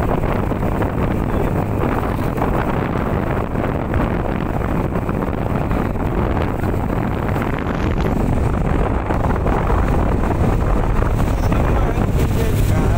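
Steady running of a small motorboat under way, with wind rushing over the microphone.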